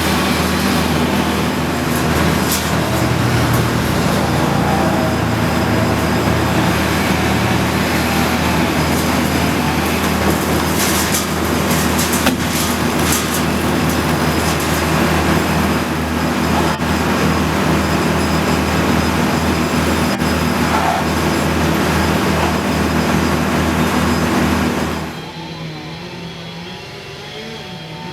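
Loud, steady engine noise of heavy tree-removal machinery running, with a hard noisy edge over a low drone. It drops off sharply about 25 seconds in.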